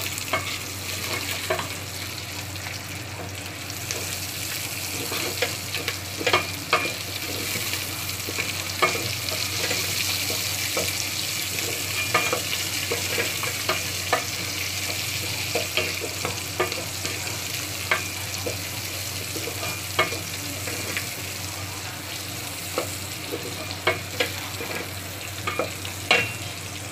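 Sliced pork and onions sizzling as they sauté in their own rendered fat in a stainless steel pot, browning. A spatula stirring against the pot gives scattered clicks and scrapes over the steady sizzle.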